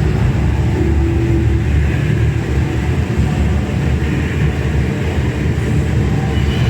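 Steady low roar of a 130-foot indoor waterfall, the HSBC Rain Vortex, plunging into its basin.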